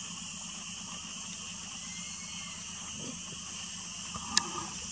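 Steady chorus of insects, a high continuous buzz over a lower hum. A single sharp click comes about four and a half seconds in.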